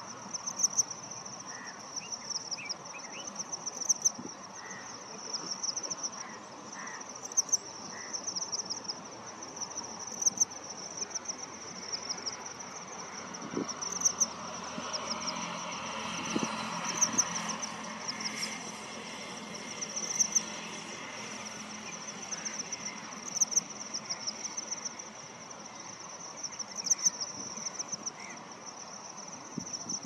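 An insect chirping high and shrill in short bursts of rapid pulses, repeating every one to three seconds over a steady background hiss of insects.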